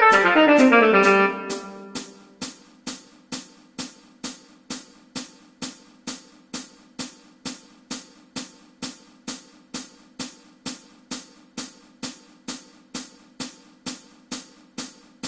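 Tenor saxophone finishing a fast descending run about a second in. After that a hi-hat backing track ticks steadily about twice a second over a faint low tone.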